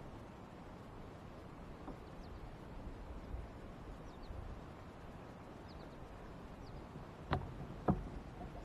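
Quiet open-water ambience on a lake with a few faint, short bird chirps, then two sharp knocks from the kayak near the end.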